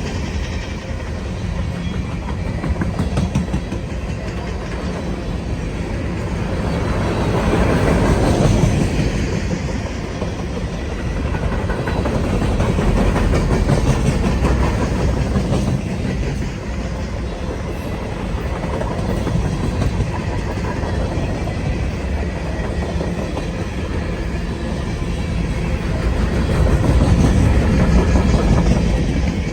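Freight train cars rolling past, steel wheels clacking over the rail joints in a continuous run; the sound swells and eases a few times.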